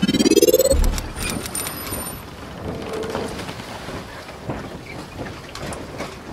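Logo intro sound effects: a rising tone sweeps up in the first second and ends in a low boom, followed by a steady crackling hiss with scattered clicks.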